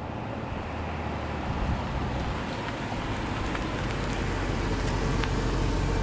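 A Range Rover Sport SUV drives up and passes close by, its engine and tyre noise growing steadily louder as it nears.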